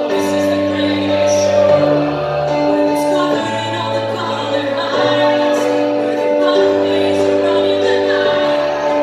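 A large mixed choir of male and female voices singing a song, accompanied by held keyboard chords and a bass line that moves in steps.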